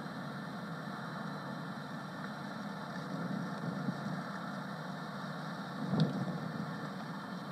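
Steady low rumbling background noise, with a short knock about six seconds in.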